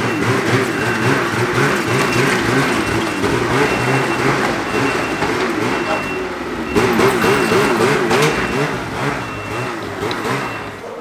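Snowmobile engine running under load, its pitch rising and falling as the throttle changes, fading near the end.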